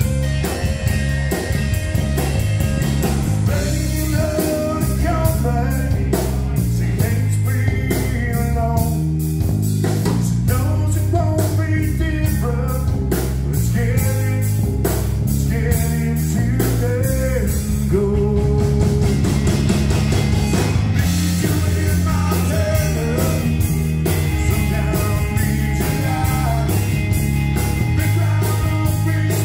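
Live rock band playing: electric guitar, bass guitar and drum kit with a steady beat, and a man singing over them.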